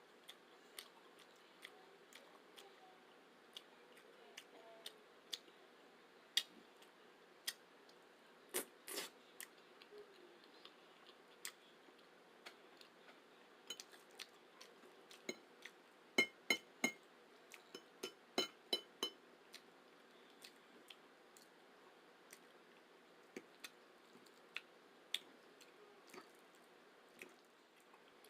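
Quiet eating sounds of a person eating spaghetti close to the microphone: scattered sharp clicks and taps from the mouth and utensils. A quick run of ringing clinks comes about 16 to 19 seconds in.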